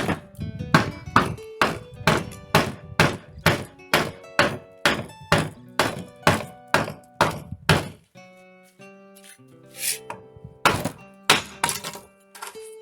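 Hammer blows on wood, a steady run of about two and a half strikes a second for some eight seconds, then a short pause and a few more blows near the end.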